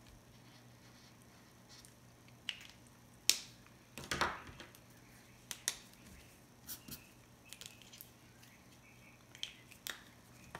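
Pens and markers being handled and set down on a paper-covered table: scattered sharp clicks and taps, the loudest about three seconds in, with a short clatter just after it.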